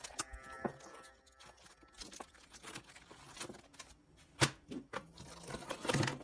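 Scattered light clicks and rustles of tools and packaging being handled, with one sharper click about four and a half seconds in.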